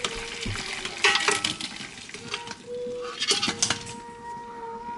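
A metal utensil scraping and clinking against a cooking pot as boiled meat is scooped out into a dish, with sharper clatters about a second in and again a little past three seconds.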